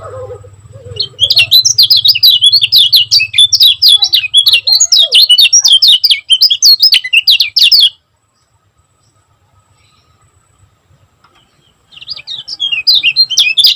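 Kecial kuning, a white-eye, singing a fast, tightly packed string of high chirps. It breaks off about halfway and starts again near the end.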